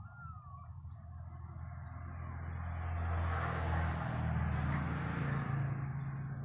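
A motor vehicle passing by, its engine hum and road noise swelling to a peak a few seconds in and then fading.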